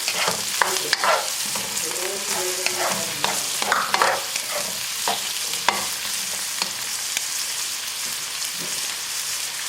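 Mixed vegetables frying in oil in a pan, sizzling steadily as a little added water cooks off, with a spoon scraping and stirring them; the stirring strokes thin out after about six seconds, leaving the sizzle alone.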